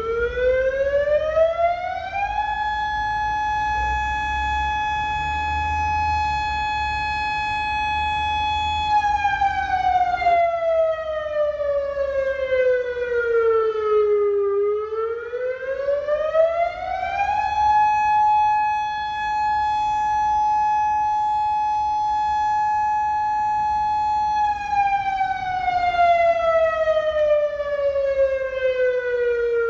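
Mechanical fire siren winding up to a steady high wail and holding it for about six seconds, then winding down. It winds up again around the middle, holds, and is winding down again near the end.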